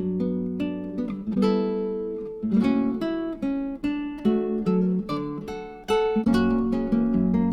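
Background music: plucked acoustic guitar notes in a steady run, with no machine sound to be heard.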